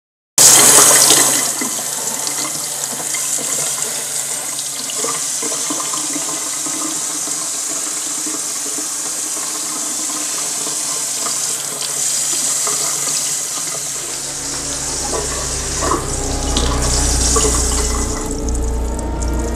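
Kitchen tap running into a steel sink while dishes are washed, with occasional clinks of a pot and knife. A low hum joins about two-thirds of the way through.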